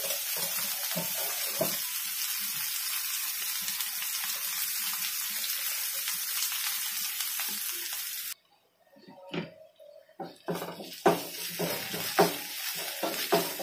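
Sliced onions sizzling in oil in a non-stick frying pan, a steady hiss. About eight seconds in it cuts off abruptly. After a short gap, a spatula scrapes and knocks against the pan as the onions and ginger-garlic paste are stirred.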